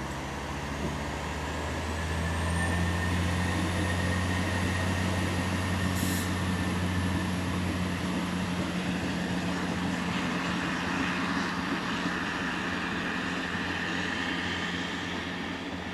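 Deutsche Bahn class 640 (Alstom Coradia LINT 27) diesel railcar pulling away: its diesel engine rises from idle to a steady harder run about two seconds in, with a faint high whine climbing alongside. A short click comes about six seconds in, and the sound slowly fades near the end as the train leaves.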